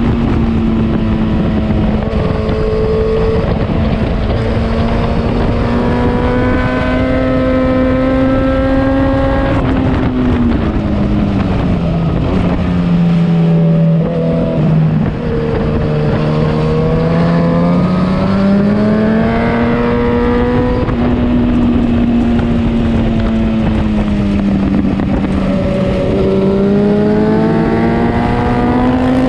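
Motorcycle engine running hard on a race track, heard from on the bike. The revs hold high, fall away for several seconds around the middle, then climb again, rising once more near the end.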